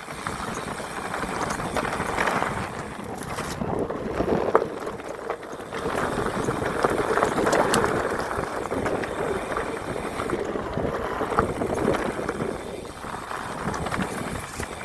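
Full-suspension mountain bike riding along a dirt trail: a rough, uneven rush of tyre and wind noise on the chest-mounted phone's microphone, with scattered clicks and knocks from the bike.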